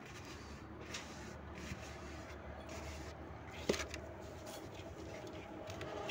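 Hands mixing damp cattle feed concentrate with wheat straw: soft rustling and scraping, with one sharp click a little past halfway, over a low steady hum.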